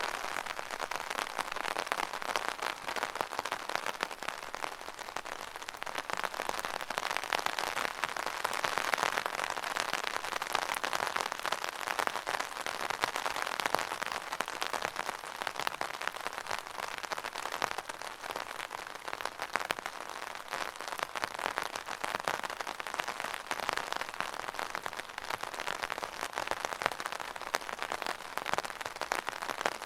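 Rain falling on an umbrella: a dense, steady patter of drops on the taut fabric canopy, swelling and easing a little in intensity.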